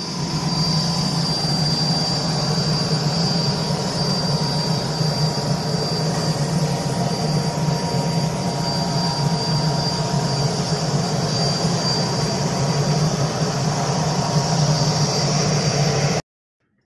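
Turboprop airliner's engines running: a loud, steady drone with a thin high whine over it. It cuts off suddenly near the end.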